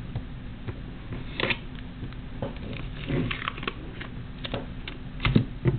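Hands handling embroidery-floss bracelet strings on a project board: scattered soft taps and rustles, a few a second apart, over a faint steady hum.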